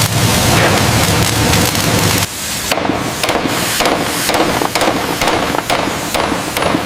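Loud dense noise for about two seconds, then a run of sharp knocks, about three a second, that sound like hammering.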